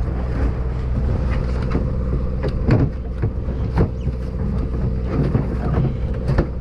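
Steady low drone of the fishing boat's engine running, with a few short knocks and clatter as a plastic cooler lid is opened and handled.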